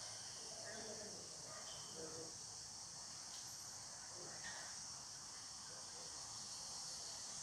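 Steady, faint, high-pitched drone of insects chirring without a break, with brief faint snatches of distant voices now and then.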